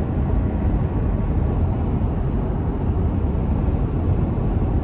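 Steady road and wind noise inside the cab of a 2024 Toyota Tundra pickup cruising at interstate speed: a low rumble of tyres and wind that stays even throughout.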